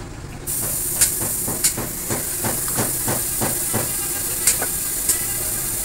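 Metal parts clinking and knocking as a part is fitted by hand over the splined pinion shaft of a Hino truck differential, a dozen or so irregular clinks with a few sharp ones. A steady high hiss starts about half a second in and runs under them.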